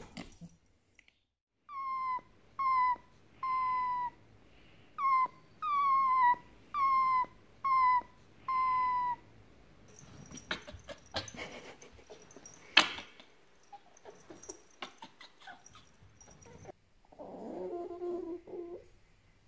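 Fennec fox whining in a run of about nine short, high calls, each dipping slightly in pitch: grumpy protest at being disturbed from sleep. Then some rustling with scattered clicks and one sharp click. Near the end come lower, wavering whines while the fox is petted, a whine that can mean it wants more petting.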